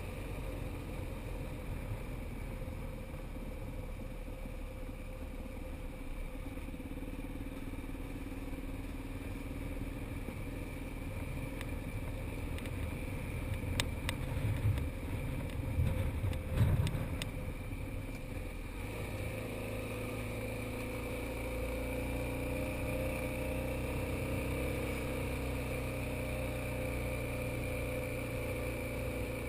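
Motorcycle engine running steadily at low road speed, heard from on the bike with rushing air over it. A few sharp knocks and low thumps come about halfway through, then the engine drone steadies and grows a little louder.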